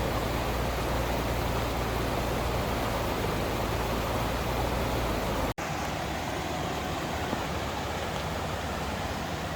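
Land Cruiser FJ80 with a swapped-in 6.0 LS V8 driving on a trail: a steady engine drone with road and wind noise. A bit past halfway it cuts out for an instant and comes back with less low rumble.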